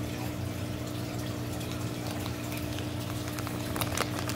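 Steady hum and watery bubbling of aquarium equipment running, with a few crinkles of a plastic fish bag being handled near the end.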